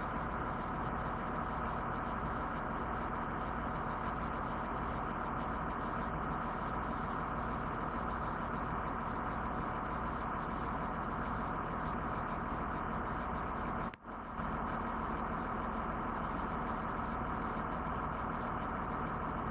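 A truck's engine idling steadily, the kind of running that drives a cherry picker's or crane's hydraulics. It cuts out for a moment a little past the middle.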